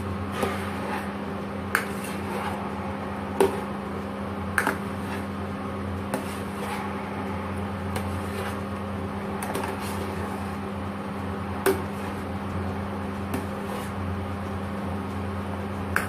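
A metal ladle stirring rice porridge in a stainless steel saucepan, clinking and knocking against the pot every second or two. A steady low hum from the electric cooktop runs underneath.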